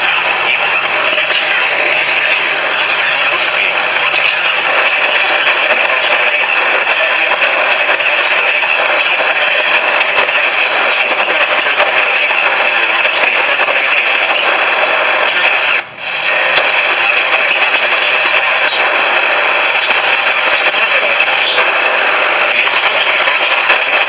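Radio static: a steady, loud hiss of noise with faint crackles, cutting out for a split second about two-thirds of the way through.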